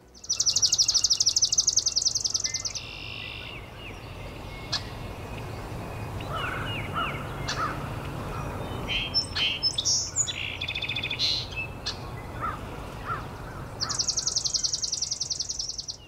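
Birdsong field recording: a swamp sparrow's fast trill of rapidly repeated high notes at the start and again near the end. Shorter chirps and calls from other birds sound in between, over a low steady background noise.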